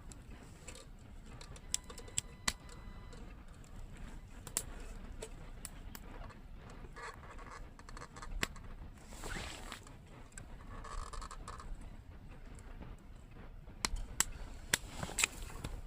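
Quiet campsite ambience with scattered light clicks and taps, more of them and louder near the end. A bird calls briefly about nine seconds in.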